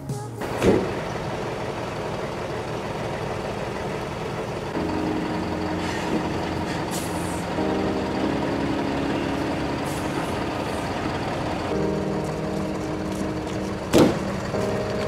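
Large truck's diesel engine running as it manoeuvres, its note stepping up and down a few times, with two short sharp air-brake hisses about half a second in and near the end.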